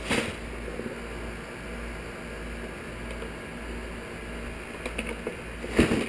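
Steady low hum, with a sharp knock at the start, a few faint clicks about a second in, and another knock just before the end.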